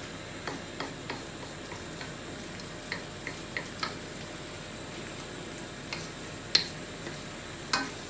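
Spinach and mixed seafood sizzling in a wok, with scattered light clicks and taps, two of them louder near the end.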